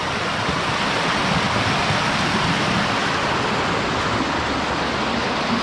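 Strong current of water rushing and splashing in a walled channel, a steady loud rush with no separate knocks or splashes standing out.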